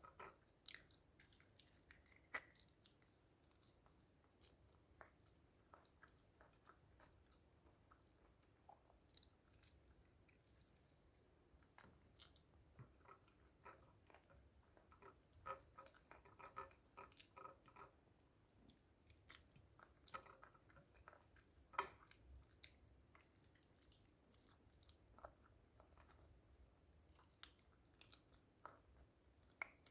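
Faint close-up chewing and mouth sounds of a person eating fried chicken and rice, with scattered sharp clicks and crunches throughout and a louder one about two-thirds of the way in.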